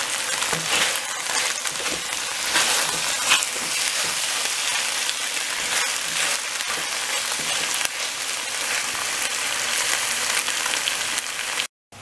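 Chicken and onion stir fry sizzling steadily in a frying pan with sauce, turned with a silicone spatula. The sizzle stops suddenly just before the end.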